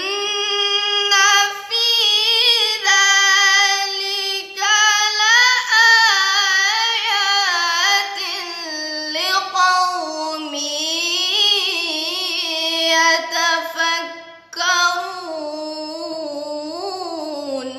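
A girl's solo melodic Quran recitation (tilawah): long, ornamented phrases drawn out on held vowels, with a few short breath breaks, the voice stopping at the end.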